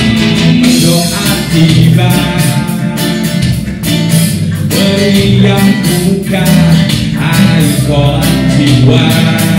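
Live reggae-tinged band music: a man sings into a microphone over strummed acoustic guitar with a full low end and drums.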